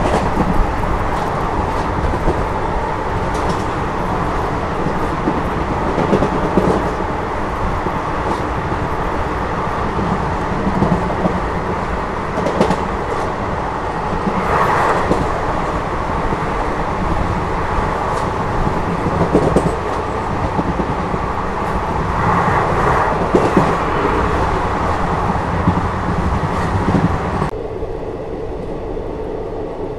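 Indian Railways express train running on the rails: a steady rumble of wheels and coaches with a few louder clatters along the way. Near the end the sound suddenly turns duller and a little quieter, losing its high end.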